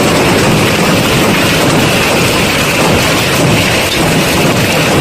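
Heavy storm downpour pelting down, a loud, steady, dense hiss and patter.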